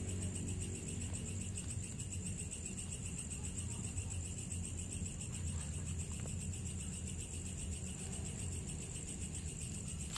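Crickets chirping steadily in a fast pulsing trill at two pitches, over a steady low rumble.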